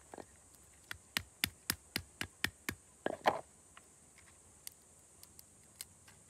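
A charred, fire-roasted cashew nut shell knocked against a rock, with about seven quick sharp taps, about four a second, then a louder crackling crunch about three seconds in as the shell splits. A few faint ticks of shell pieces follow.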